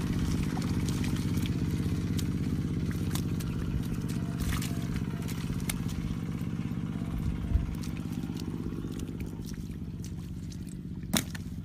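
A small engine running steadily at an even pitch, slowly growing fainter, with a couple of short sharp clicks.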